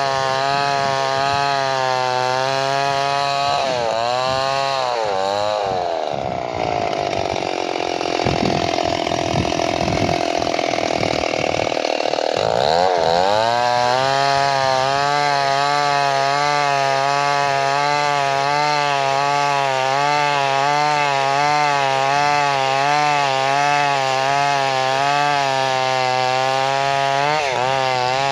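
Two-stroke chainsaw running at high revs. About four seconds in, its pitch drops and the sound turns rough and noisy as it cuts into wood under load. Around thirteen seconds it climbs back to full revs, with one more short dip near the end.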